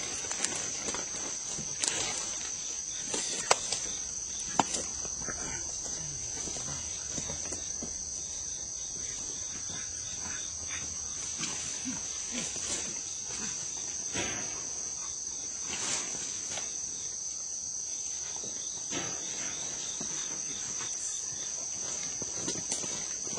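Steady high-pitched buzz of an insect chorus, with scattered light knocks and rustles and two sharper knocks about three and a half and four and a half seconds in.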